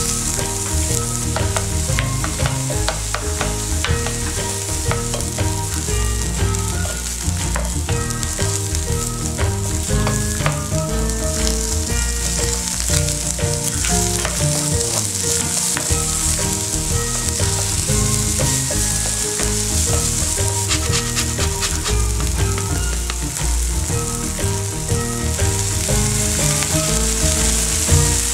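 Garlic, shallots and halved cherry tomatoes sizzling steadily in hot olive oil in a frying pan, stirred with a wooden spatula.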